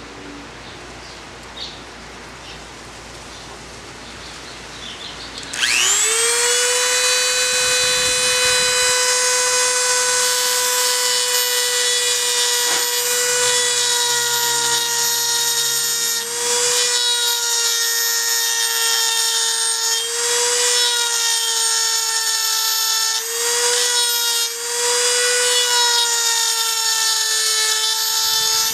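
A handheld rotary tool with a cone-shaped grinding stone spins up quickly about five seconds in to a steady high-pitched whine. It grinds burrs off the edges of a steel transmission gear's helical teeth, sagging slightly in pitch now and then as the stone bites.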